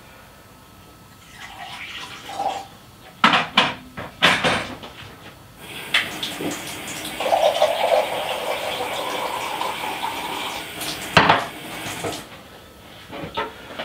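A kitchen tap running water into a glass measuring jug for about six seconds, with a few clunks and knocks before it and a sharp knock near the end of the filling.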